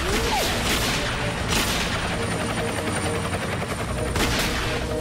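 Film soundtrack of a helicopter's rotor and engine running with gunfire from it, louder bursts of fire about one and a half seconds in and again past four seconds.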